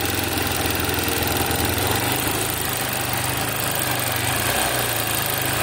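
Hero Honda Hunk's single-cylinder four-stroke engine idling steadily with a fast, light 'kiti kiti' ticking from the valve gear: the tappet clearance is out of adjustment.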